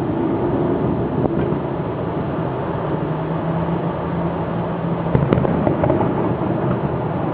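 Fireworks display going off: a continuous crackling, rumbling din with a few sharp bangs, the loudest a little after five seconds in.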